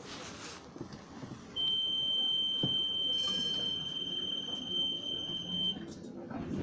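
Tram door-closing warning: a steady high-pitched beep held for about four seconds, starting about a second and a half in.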